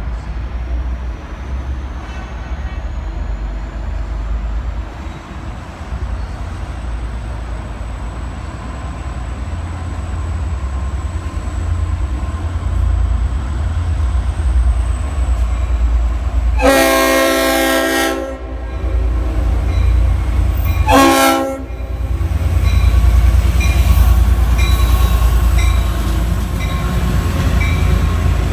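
Diesel-electric locomotive engine rumbling as the train departs. About two-thirds of the way through, its Leslie RS5T five-chime horn sounds a long blast of about two seconds, then a short one. After that the engine grows louder as it pulls away.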